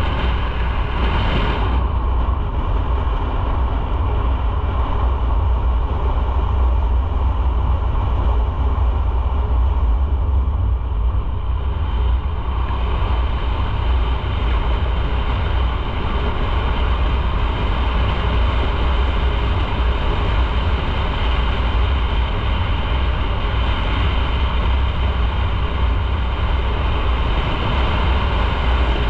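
Motorcycle on the move: steady engine and road noise under a heavy low rumble. The higher hiss drops back for about ten seconds from two seconds in.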